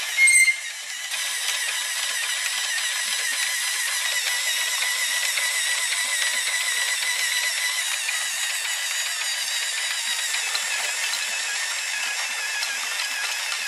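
Small electric motor in a plastic building-block toy truck running steadily, turning its plastic gears and belt drive with an even whine; a short loud clack comes just after the start.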